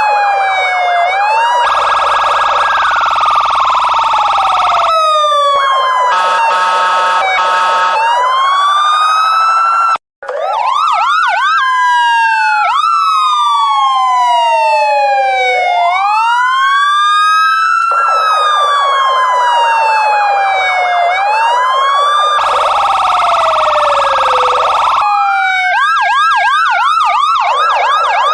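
Police car siren sounding continuously, switching between a slow rising-and-falling wail, a fast warbling yelp and stretches of a steady blaring tone. It cuts out for a split second about ten seconds in, then resumes.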